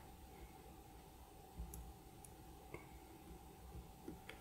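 A few faint, scattered clicks of small plastic parts being handled, as the housing of a mouse button's microswitch is worked back onto its base on the circuit board.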